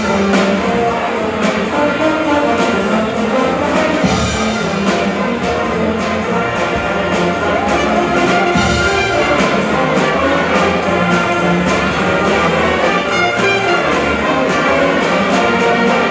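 A high school band playing: brass and saxophones in several parts over a steady drum beat.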